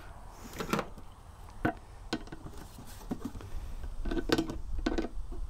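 Scattered light clicks and knocks from handling a small plastic fuel tank, a nut on its fitting and a hand tool, with a few closer-spaced knocks about four to five seconds in.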